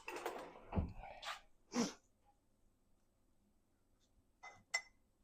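Soft handling noise and a short breathy puff, then two light clinks of a utensil against a dish near the end, as the microwaved oat bake is tested to see if it is done.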